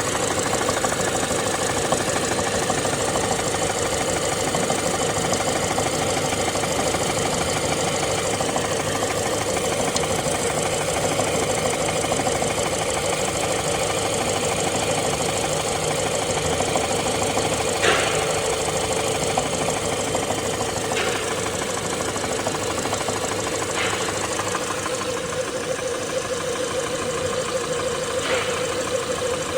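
Ford 1.5 EcoBoost engine running steadily with a fast, continuous knocking, which the owner puts down to the flywheel. In the second half there are four brief sharp sounds a few seconds apart, the loudest about 18 seconds in.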